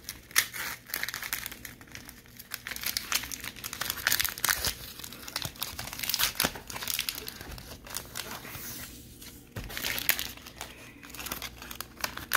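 Paper sticker packet crinkling and tearing as it is worked open by hand, in dense irregular crackles, with the stickers and card inside being handled.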